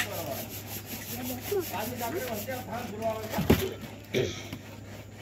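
Rhythmic scraping and rubbing close to the microphone, with two knocks about three and a half and four seconds in.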